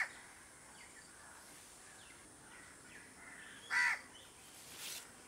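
Crow cawing: the tail of one harsh caw right at the start and a second loud caw about four seconds in, with faint bird chirps between them.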